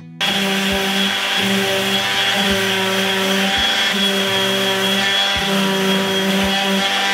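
Random orbital sander running on a wooden board, starting abruptly just after the start with a loud, steady whir whose pitch wavers slightly about once a second as it is worked across the wood.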